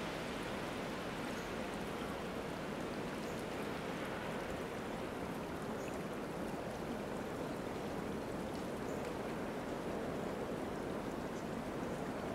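Small brook running with a steady rush of water and faint scattered drips.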